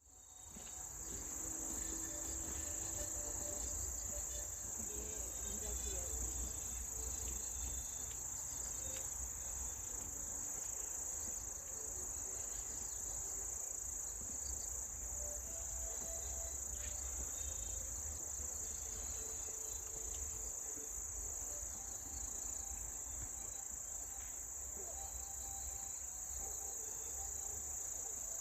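A steady, high-pitched chorus of crickets, fading in at the start and holding even throughout, over a low rumble.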